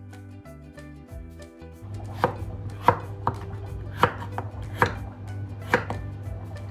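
A knife chopping on a cutting board: single sharp strokes, about one a second, over a low steady hum. Background music fades out just before the chopping starts.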